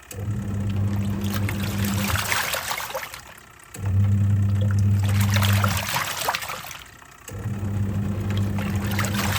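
Twin-tub washing machine's wash tub agitating: the pulsator motor hums in runs of about two seconds, three times, with short pauses between as it reverses direction. Water sloshes and splashes throughout.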